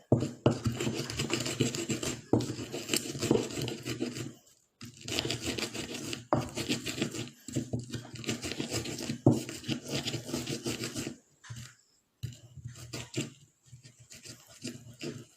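Pestle grinding chilies and salt in a mortar (Indonesian ulekan and cobek): a stretch of scraping and rubbing, broken twice by short pauses, with a few sharp knocks of the pestle against the mortar.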